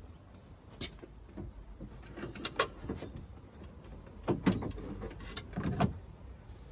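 Irregular clicks and knocks of hands and tools working on the inner parts of a Land Rover Freelander 2 rear door while the door handle is being worked free. The sharpest clicks come about two and a half seconds in, with a cluster of knocks near four and a half seconds and another near six.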